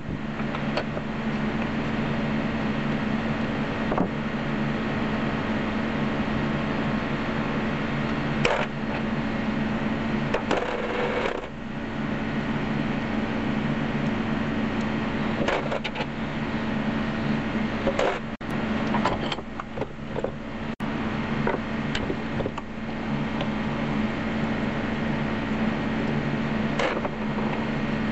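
Steady background hum and hiss, with scattered metallic clicks and clinks as an old hand-cranked grinder's gear housing is taken apart: a washer slid off a shaft and a wrench fitted to a nut.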